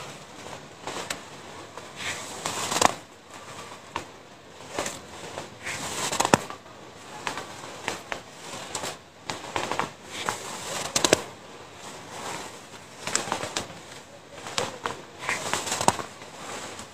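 A hand grabbing and squeezing fresh powdery snow, crunching in short bursts about every second or two.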